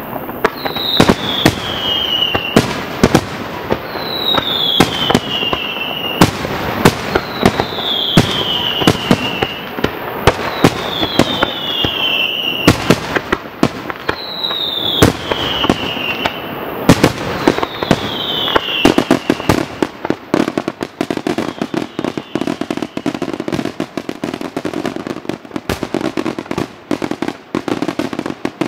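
Aerial firework shells bursting with sharp bangs in a steady run, growing about two-thirds of the way in into a dense, rapid barrage of reports. Through the first part, a high falling whistle repeats about every two seconds over the bangs.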